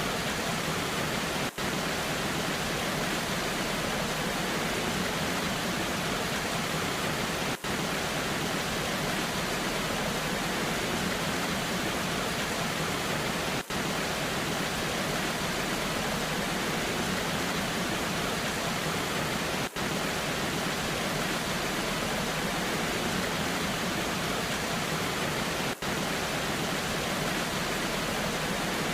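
Waterfall in the rain: a steady, even rush of falling water, broken by a very short dropout about every six seconds.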